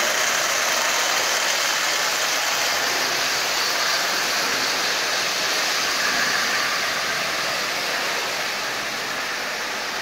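Marx 666 toy steam locomotive running around metal track, giving a steady whirring rush from its electric motor and wheels.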